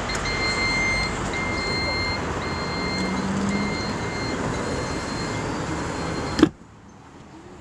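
The tailgate of a Citroën Grand C4 Picasso closing, with a high warning beep repeating about once a second as it comes down. It ends in a single loud thud as it shuts, about six and a half seconds in.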